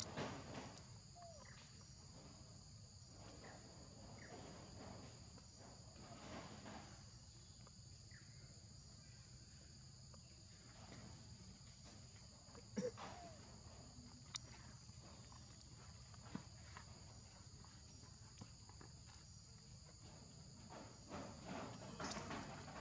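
Faint steady insect chorus, two high even tones held throughout, with scattered soft taps and rustles that come more often near the end.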